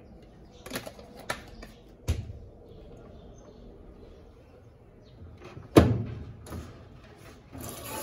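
A handful of sharp knocks and clicks from handling at the washing machine, the loudest a single thump a little past the middle. Near the end, water starts running steadily into the Electrolux LAC17 washer as it begins to fill.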